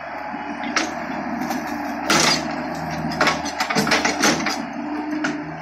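Hitachi mini excavator's diesel engine running steadily, with sharp knocks and clanks from the bucket and arm working: a loud knock about two seconds in and a run of knocks as the bucket tips a load of manure into the trailer.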